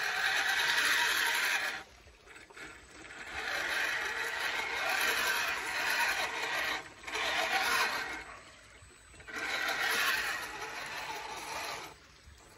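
RC rock crawler's electric motor and gear drivetrain whirring as it crawls over creek-bed stones, with its tyres scraping and knocking on the rocks. It drives in about four stretches, going quieter for a moment between them as the throttle eases.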